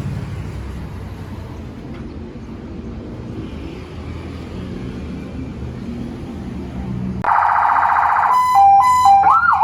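A low steady rumble, then about seven seconds in an electronic vehicle siren on a Hino 500 truck starts loudly: a harsh buzzing tone for about a second, then a hi-lo tone stepping between two pitches, then a rising and falling wail near the end, as the newly fitted siren is tried through its tones.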